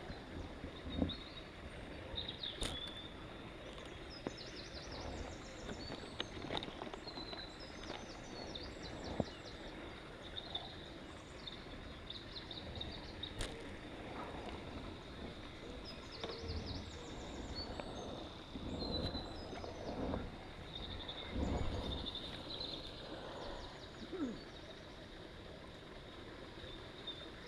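Small birds chirping and trilling in short repeated phrases over a steady low rumble of wind on the microphone, with a few sharp knocks and rustles from tackle being handled.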